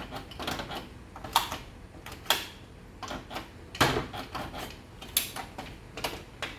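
Irregular sharp plastic clicks and knocks from handling the washing machine's control panel and electronic control unit, five louder strikes with lighter ticks between.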